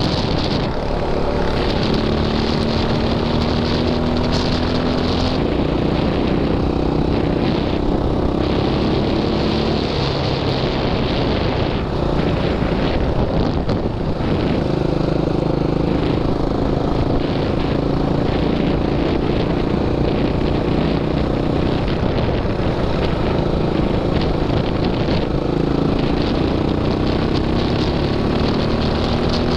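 Quad (ATV) engine running under way, heard close up, its pitch slowly climbing with the throttle and dropping back several times.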